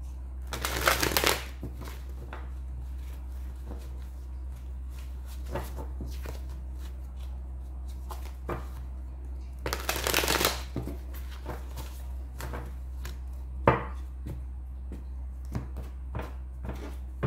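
Tarot cards being shuffled and handled: two rustling shuffles about a second long, one near the start and one about ten seconds in, with lighter card taps and slaps between and one sharp snap of cards near fourteen seconds.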